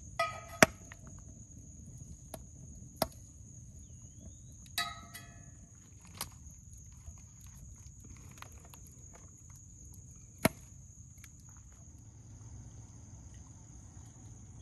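Sharp knocks and short ringing clinks of a knife, a glass plate and sandwiches being handled on a cast iron skillet that sits on a metal campfire grate; the loudest knock comes under a second in, with others about three seconds and ten seconds in. A steady high insect drone runs underneath.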